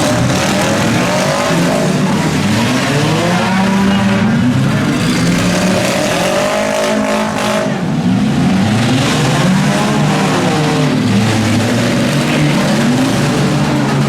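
Several demolition derby cars' engines revving hard together, their pitch rising and falling over and over as the cars drive in the arena.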